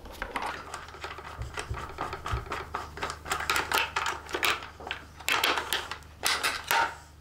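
Quick light metallic clicks and scrapes of a 5 mm Allen key working loose the bolt under a motorcycle's pillion seat. The clicks come in irregular flurries, busiest in the second half.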